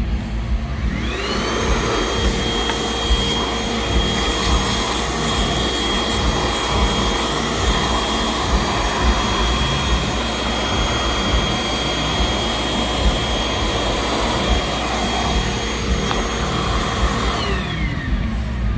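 300-watt spindle of a Fox Alien 4040 desktop CNC router spinning up to a steady high whine about a second in, running at speed, then winding down near the end, over a constant rushing noise.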